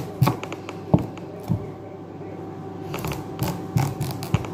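Serrated knife sawing through the tough rind and flesh of a large squash, making irregular scraping strokes and sharp knocks, about seven of them unevenly spaced. The rind is hard to cut.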